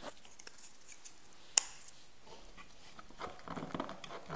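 Quiet handling noise: a single sharp click about a second and a half in, then soft rustling and light taps near the end.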